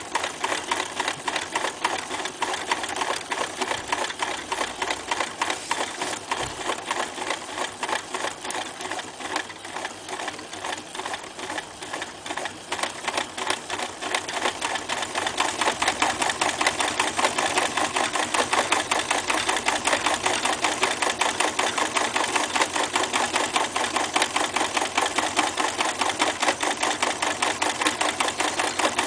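Reads 300 zigzag electric sewing machine stitching through a leather strap, running with a steady stitch-by-stitch rhythm that gets louder about halfway through.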